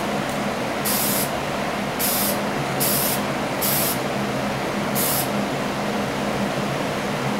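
Short hissing bursts of spray paint, roughly one a second, stopping after about five seconds: a light tack coat of gloss black going onto a diecast car body. A steady low hum runs underneath.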